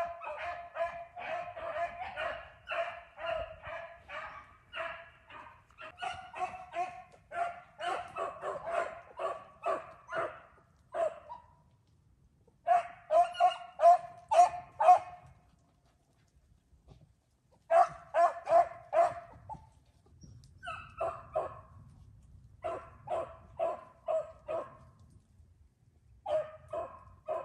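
A pack of beagles baying while running a rabbit's scent track. The short, rapid barks come several a second in long runs, with two brief lulls partway through.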